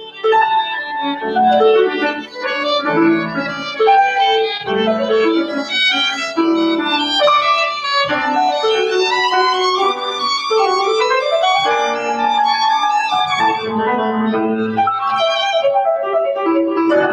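A violin and a grand piano playing classical music together: a bowed violin melody over piano accompaniment, with a few notes sliding in pitch about ten seconds in.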